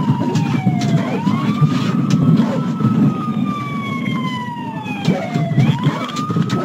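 Police car siren in wail mode: its pitch climbs quickly about a second in, slides slowly down for about four seconds, then climbs again near the end. A steady low rumble runs underneath.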